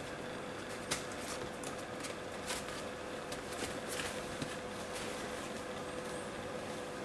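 Schipperke puppies' paws scuffing and rustling on newspaper and a puppy pad, with a few light clicks, over a steady hum.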